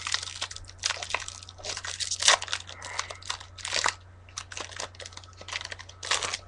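Foil trading-card booster pack wrappers crinkling and crunching as the packs are handled and opened, with the cards shuffled in hand: a run of irregular rustles, the loudest about two seconds in.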